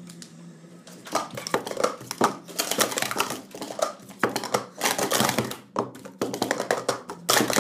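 Speed Stacks plastic cups being stacked and unstacked at speed on a stacking mat: a fast, irregular run of light plastic clacks and taps that starts about a second in, with the loudest clatter near the end.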